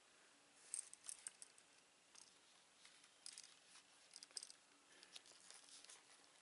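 Faint handling sounds of a stiff leather Bark River knife sheath: small clicks and rustles as the flap is pulled and stretched around the knife handle toward a snap that cannot reach to close.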